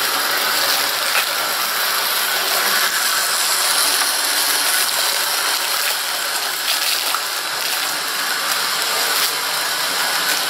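Steady rushing hiss with the faint rattle of a 00 gauge model train running round its track, and the crinkle of a plastic packet being handled.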